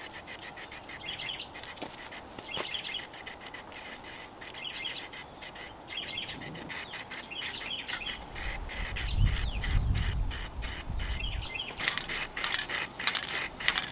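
Aerosol can of lacquer spraying in many short hissing bursts, applying a finish coat to wood. Small birds chirp faintly behind it, and a low rumble comes in about eight seconds in.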